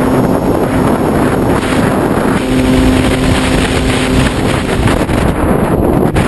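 Airflow rushing over the microphone of a GoPro carried on board a Radian Pro RC glider in flight in high wind. A steady hum runs under the rush until about four and a half seconds in, then stops.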